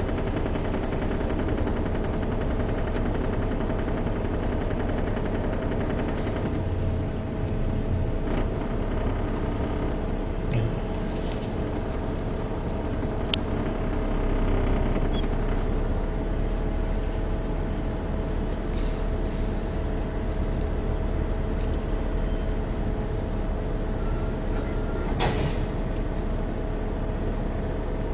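Steady hum and low rumble of a running vehicle engine, with a few faint clicks.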